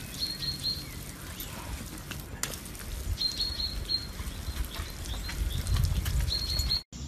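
Water spraying from a garden hose spray nozzle onto the grass, a steady hiss. Runs of three or four short high chirps come four times.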